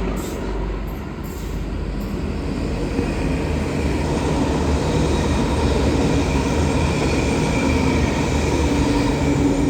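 XPT passenger train passing through a station, a steady loud rumble of steel wheels on rail with a faint steady whine over it.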